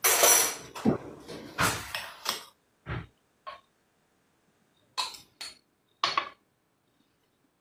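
A metal spoon clinking and scraping against a glass jar, in about eight short separate strikes spread over the first six seconds, some with a brief ring.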